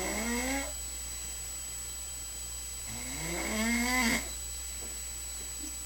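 Snoring, with each snore rising in pitch over about a second. One snore ends just after the start and a full one comes about three seconds in, with a steady low hum between them.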